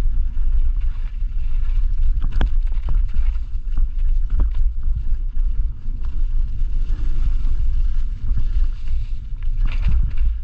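Mountain bike rolling fast down a dirt forest trail, with wind buffeting the microphone as a heavy low rumble. Tyres crunch over dirt and leaves, and the bike gives scattered sharp rattles and knocks over roots and rocks, with a cluster of them near the end.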